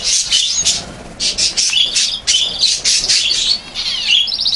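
Canary singing: a fast, unbroken run of high chirps and trills.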